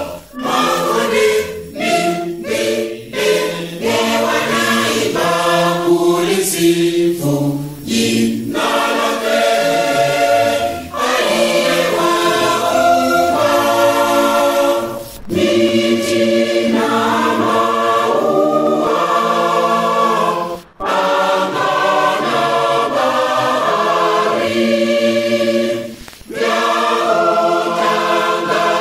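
Large Lutheran church choir singing a Swahili hymn, phrase after phrase with brief breaks between them.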